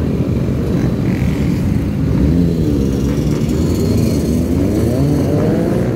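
Many motorcycle, dirt bike and quad engines running together, with engine pitch rising and falling as bikes rev and ride past.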